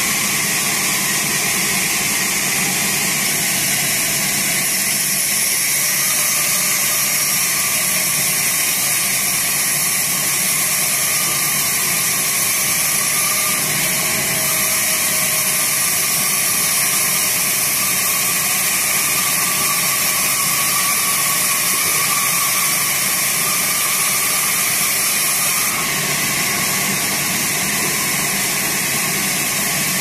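Sawmill band saw running and cutting a teak slab: a steady hiss from the blade over an even machine hum, a little quieter in the last few seconds.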